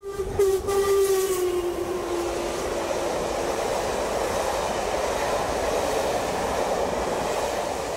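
A train horn sounding one long note that sinks slightly in pitch as the train passes, then fades into the steady noise of the train running by.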